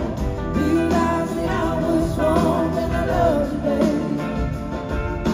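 Live rock band playing: electric guitars, bass, keyboards and drums, recorded from the audience in a large hall.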